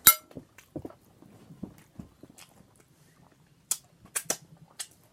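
Close-miked eating sounds: chewing with scattered wet mouth clicks and lip smacks, a sharp click at the very start and a quick cluster of louder smacks about four seconds in.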